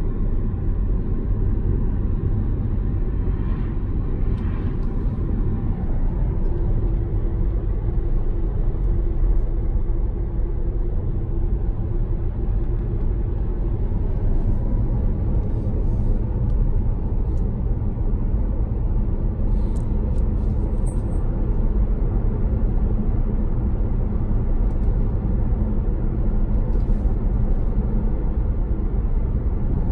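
Steady low road and tyre rumble inside the cabin of an electric car cruising on an open road, with no engine note.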